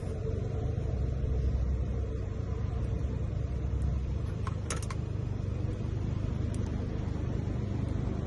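A vehicle engine idling steadily, a low, even rumble, with one short click about halfway through.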